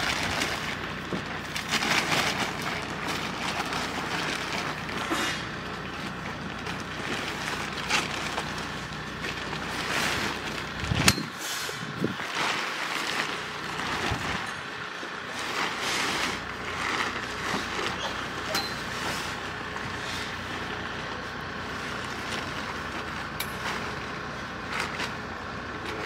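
Canvas swag tent being unrolled and pitched by hand: heavy fabric rustling and flapping, with scattered knocks and a sharper knock about eleven seconds in as the frame and poles are handled.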